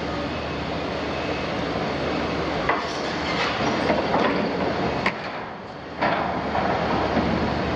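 Liebherr 974 demolition excavator's diesel engine running steadily, with sharp metal clanks and scraping from its demolition attachment working on steel tank scrap. The clanking is thickest between about three and five seconds in. It eases off briefly just after that, then picks up again.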